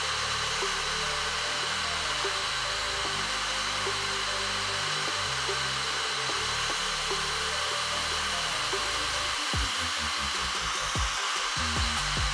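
Handheld hair dryer running steadily, blowing hot air with a steady high whine over a stick-on rubber grip panel on a pistol frame, heating the panel so its adhesive bonds.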